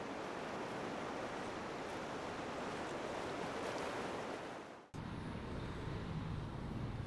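Sea waves as a steady, even rush of surf. About five seconds in it cuts off abruptly, giving way to a steady low outdoor rumble.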